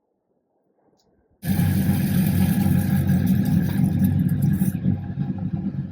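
Near silence, then a vehicle engine running, which cuts in suddenly about a second and a half in as a loud, steady low sound with a hiss over it, and eases off a little near the end.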